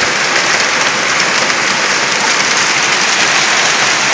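Large hailstones falling heavily, a dense, steady clatter of many small impacts on surfaces.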